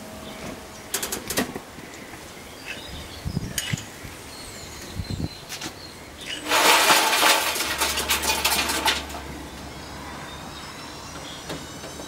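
A few sharp clicks, then a loud rushing noise for a couple of seconds over a low hum. After it, a faint whine rises slowly in pitch as a Hotpoint washing machine's universal brush motor, fed straight from a variac, begins to spin up.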